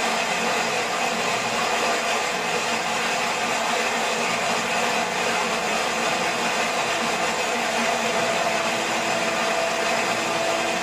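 Waterfall, falling water rushing with a steady, unbroken noise close to the microphone.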